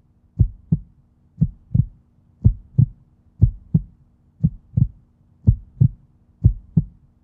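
Heartbeat sound effect: seven low double thumps, lub-dub, about once a second, over a faint steady hum.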